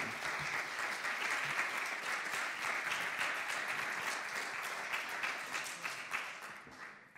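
Audience applauding a speaker, a dense patter of many hands clapping that holds steady and then dies away over the last second or so.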